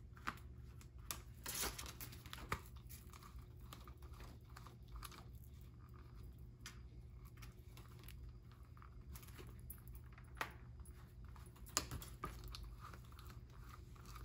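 Spiral binding coil being turned by hand through the punched holes of a notebook: faint, irregular small clicks and paper rustling as the coil winds along the edge.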